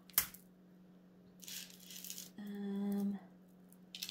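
Stone bead jewelry clicking and rattling as it is picked up and handled: a sharp click just after the start, a rustling clatter a second and a half in, and more rattling near the end. A short steady hum sounds about halfway through.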